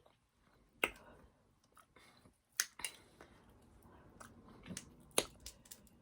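Close-miked chewing and wet mouth sounds from eating, broken by a few sharp mouth clicks: one about a second in, two close together near the three-second mark, and one about five seconds in.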